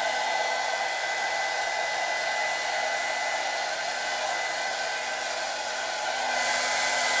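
Nicky Clarke hand-held hair dryer running steadily on its cool setting, a rushing hiss of air with a thin steady motor whine, blowing through hair; it gets a little louder near the end.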